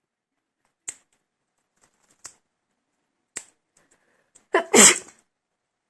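A woman sneezes once, loudly, about four and a half seconds in: a short lead-in sound, then the burst of the sneeze. A few faint clicks come before it.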